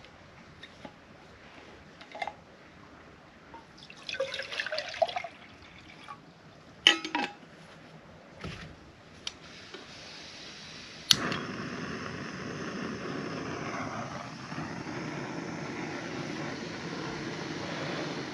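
Scattered clicks and a brief rattle of small items being handled. About eleven seconds in, a sharp click is followed by a steady stream of water pouring into a metal mug.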